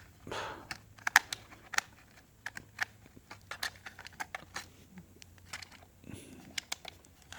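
Scattered light clicks and taps of fingers handling a plastic quadcopter, working inside its battery compartment to free the tucked-in charging-cable connector.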